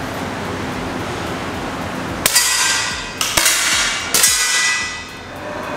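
A 10 m air pistol fired about two seconds in, a sharp crack, followed by two more sharp metallic clanks about a second apart, each ringing out in the large hall.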